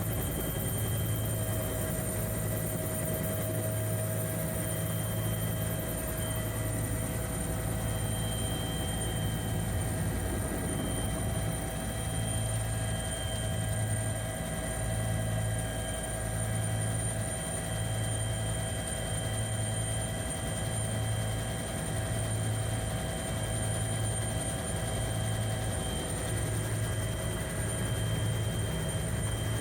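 Bell 212 twin-turbine helicopter heard from inside the cabin: a steady drone of rotor and turbines, with a low hum that pulses about every second and a half and several steady high whines.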